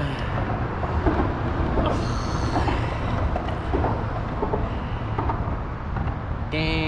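Wind buffeting an action camera's microphone: a steady, heavy low rumble, with a few faint clicks and a brief pitched sound near the end.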